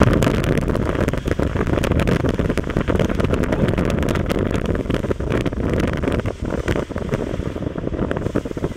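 Motorcycle riding noise: wind buffeting the bike-mounted microphone with constant crackling, over the motorcycle's running engine.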